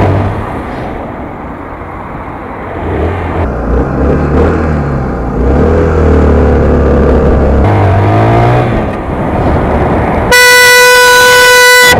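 Honda CBR125 motorcycle's single-cylinder engine running through traffic, its revs rising and falling. Near the end a loud vehicle horn sounds one long steady note for about a second and a half.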